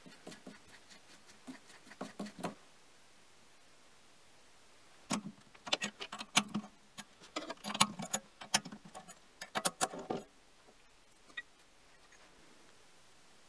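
Light scratching and faint clicks as metal chips are brushed off a lathe workpiece, then from about five seconds in a run of sharp metal clicks and knocks as the cast-iron tailstock casting is handled and freed from the lathe chuck.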